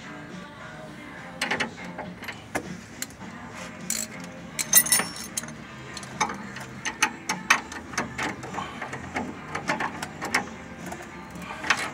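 Metal wrenches and a socket ratchet clinking and clicking against bolts and suspension parts while bolts are tightened under a car, in irregular sharp clicks with a cluster of louder clanks about five seconds in.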